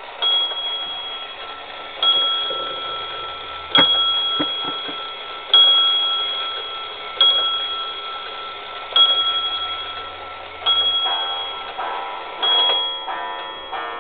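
Bell of a Black Forest wag-on-the-wall clock striking the hour: eight slow, evenly spaced strokes about 1.7 seconds apart, each ringing out and fading before the next. Near the end a denser mix of other ringing tones comes in.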